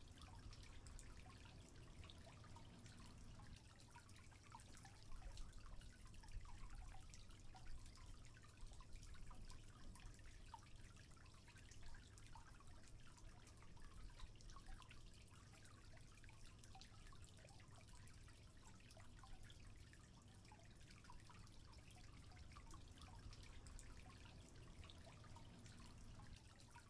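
Faint trickling water with small drips scattered irregularly.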